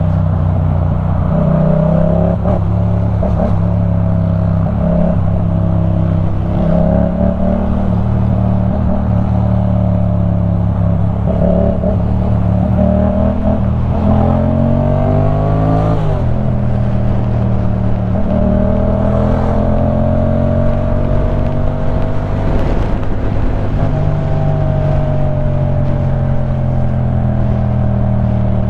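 2015 Yamaha MT-07's 689 cc parallel-twin engine running through a LeoVince One Evo full exhaust system while riding. The revs hold fairly steady, then climb for several seconds in the middle and fall suddenly at a gear change, before rising and easing again gently.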